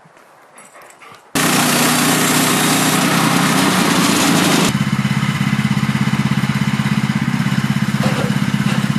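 Portable sawmill's gasoline engine comes in suddenly about a second in and runs hard for about three seconds, then drops to a steady, pulsing idle.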